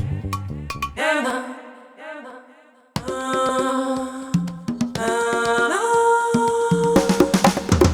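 Music from a song: the beat drops out about a second in and the sound fades almost to nothing, then about three seconds in it comes back with held tones and rising slides, with drums building up again near the end.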